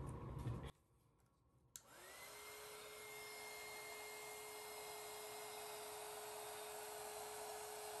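Handheld heat gun switched on with a click about two seconds in. Its motor rises in pitch and settles into a steady whine over the hiss of blowing air.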